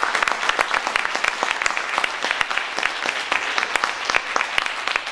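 Audience applauding: many hands clapping densely and irregularly, easing off slightly toward the end.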